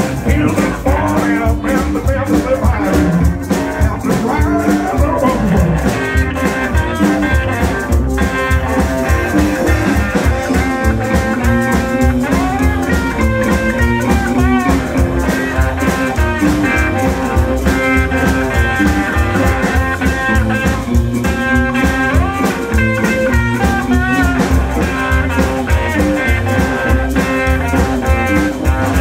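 Live blues band playing an instrumental passage: electric guitars, including a hollow-body archtop, over an upright double bass.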